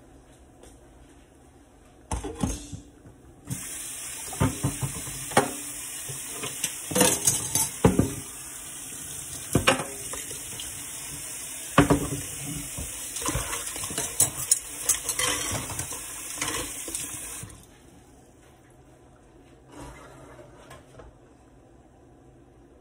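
Kitchen tap running into a stainless-steel sink for about fourteen seconds while a cutting board, fork and pot lid are rinsed, clattering against the sink. A few softer knocks follow after the water is turned off.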